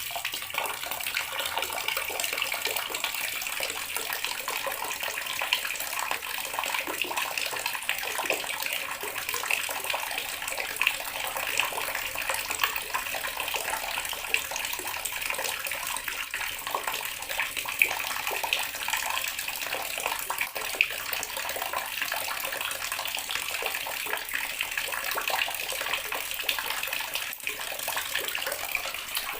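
Water running steadily from a tap and splashing into a basin below.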